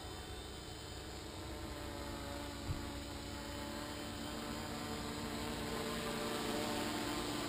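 Electric motors and propellers of a quadcopter running with a steady buzzing hum, growing slowly louder as it flies in close. A single short knock comes nearly three seconds in.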